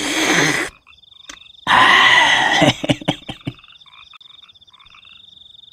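Frogs croaking at night: two loud bursts of croaking near the start, then fainter scattered croaks over a steady high trill.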